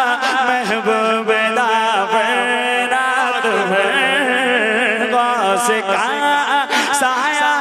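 Naat being sung: a male voice holds a long, wavering, melismatic melodic line over a steady low drone, with no clear words.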